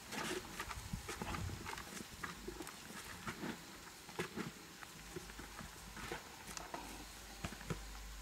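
Irregular light knocks and scuffs, about two a second.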